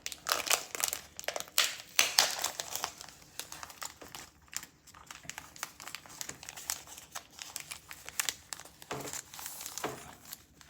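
Plastic comic book bag crinkling and rustling as the comic is handled and slid out, loudest in the first few seconds, then softer.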